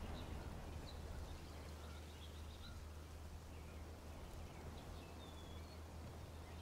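Quiet outdoor ambience: a steady low rumble under faint, scattered high chirps of small birds.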